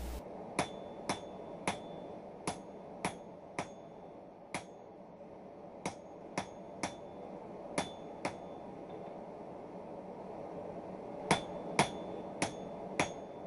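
Hand hammer striking a red-hot bar of 5160 spring steel on an anvil, drawing out the tapered blade of a cold chisel. About sixteen blows come in irregular groups, with a pause of about three seconds near two thirds of the way in. Several blows carry a brief ring.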